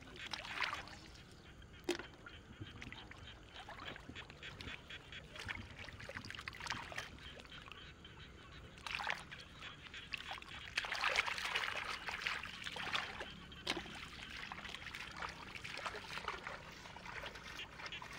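Hands digging and scooping through wet mud and shallow water: irregular squelching and splashing, busiest about nine seconds in and again from about eleven to thirteen seconds.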